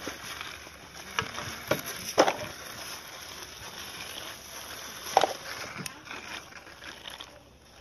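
Small plastic toy tractor and trailer being pushed and bumped along a concrete ledge: a handful of sharp clacks and knocks, two close together about two seconds in and another about five seconds in, over a steady hiss.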